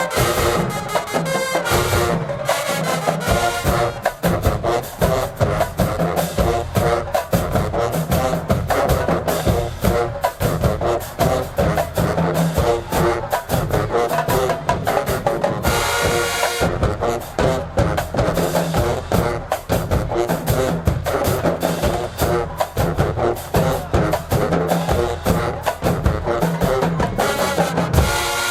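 HBCU marching band playing, its drumline of bass drums and snares beating a dense, steady rhythm under held brass chords.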